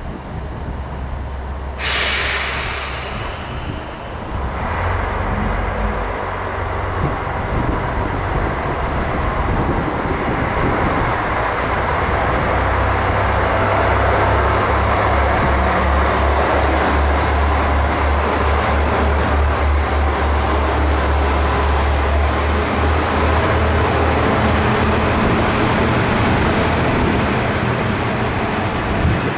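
A diesel train on the unelectrified Dosan Line, its engine and wheels making a low rumble that grows louder from about five seconds in and then holds steady and throbbing. A short, loud rush of noise comes about two seconds in.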